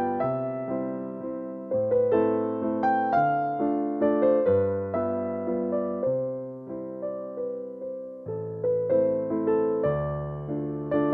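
Background piano music: a slow, gentle melody of struck notes that ring and fade one after another.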